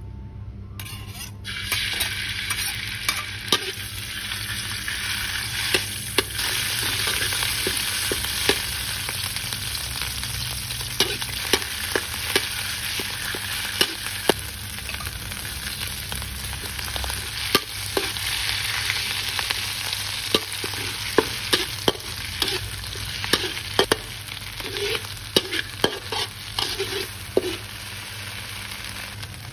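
Hot oil sizzling in a metal wok as red spice paste fries in it, starting about a second in, while a metal spatula stirs and scrapes, clicking against the wok many times.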